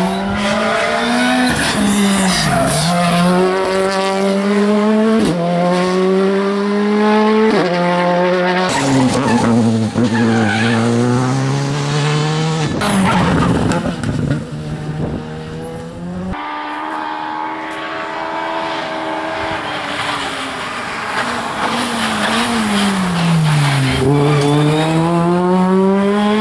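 Rally cars at full throttle, one after another. The engine pitch climbs through the gears and drops sharply at each upshift. Near the end a car slows, its pitch falling, then accelerates hard again.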